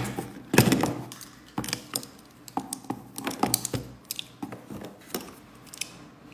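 Irregular clicks and knocks of makeup items and cases being handled and set down, with one louder knock about half a second in.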